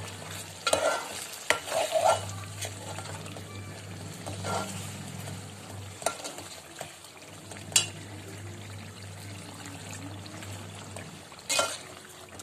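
A steel spoon stirs and scrapes mutton cooking in yogurt masala and stock in an aluminium pot. The mixture sizzles and bubbles, and the spoon clinks against the pot now and then, over a steady low hum.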